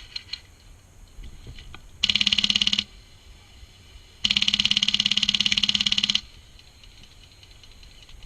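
HPA-powered G&G airsoft light machine gun with a Wolverine Inferno Gen 2 engine firing two full-auto bursts, a rapid even rattle of shots. The first burst lasts under a second; the second, longer one lasts about two seconds.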